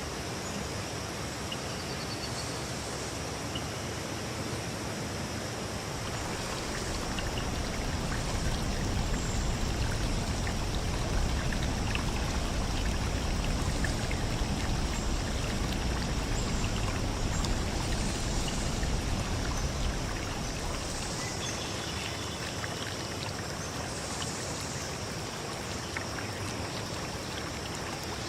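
A stream running: a steady rush of flowing water that swells louder and deeper from about a quarter of the way in until about two-thirds through. A thin, steady high-pitched tone runs above it the whole time.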